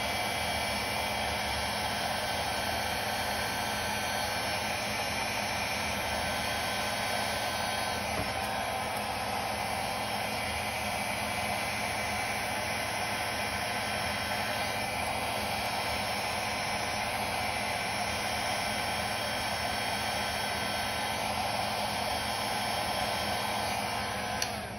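Hair dryer running steadily on its cool, low setting, a constant rush of air with a faint motor hum, blowing across wet acrylic paint. It switches off near the end.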